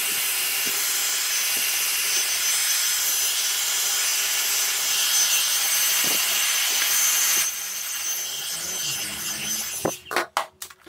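Hand-held hair dryer blowing air into the emptied dustbin bay of a robot vacuum, a steady rushing hiss. It drops lower about seven and a half seconds in, then cuts out in a few uneven gusts near the end.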